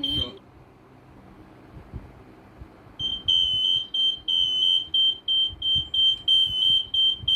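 Carbon monoxide alarm sounding a high-pitched pattern of quick beeps, roughly three or four a second. It stops just after the start and resumes about three seconds in. The alarm is warning of a high level of carbon monoxide.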